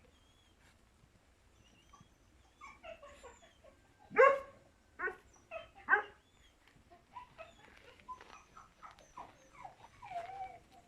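A dog whining and yipping in short pitched calls. The loudest comes about four seconds in, followed by two more sharp ones about a second apart, then softer whimpers.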